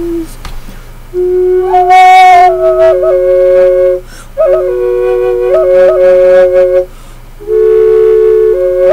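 Wooden Native American flute playing three slow phrases with short pauses for breath. A steady drone note sounds under a melody line that steps downward in the first two phrases and rises, then falls, in the third.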